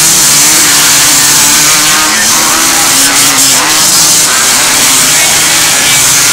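Several three-wheeled ATCs racing together, their engines revving, each rising and falling in pitch over the others.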